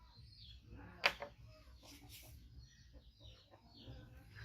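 Short, high chirping calls repeating throughout, with a sharp click about a second in.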